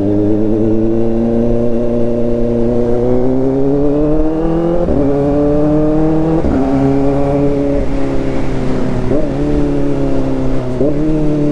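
Kawasaki Ninja ZX-4RR's 399 cc inline-four engine running loud through an SC Project slip-on exhaust. The pitch climbs slowly for the first few seconds, then dips and surges quickly several times as the throttle changes.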